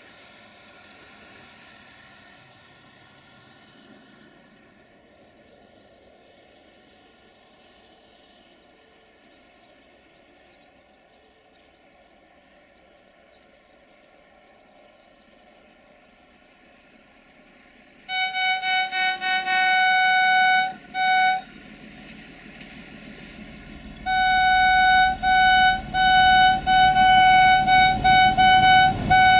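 Crickets chirping in a steady rhythm over a faint distant diesel rumble. About eighteen seconds in, the approaching 060-DA (LDE2100) diesel freight locomotive sounds its horn, one steady pitched tone, in a quick string of short toots. About six seconds later it gives a longer series of blasts with brief gaps, while the engine's rumble grows louder as the train nears.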